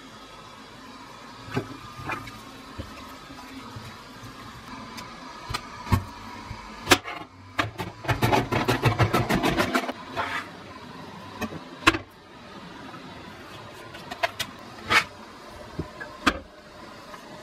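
Kitchen knife chopping on a cutting board: a fast run of strokes in the middle lasting about two seconds, with single knife taps and knocks before and after.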